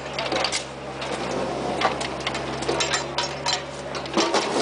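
A mini excavator's engine running steadily under irregular scraping and clinking of a shovel working through broken ground, with a quick cluster of knocks about four seconds in.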